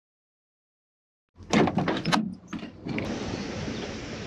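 Silence, then a quick run of knocks and clunks from a camper van's side doorway as a man steps out. A steady outdoor background noise follows from about three seconds in.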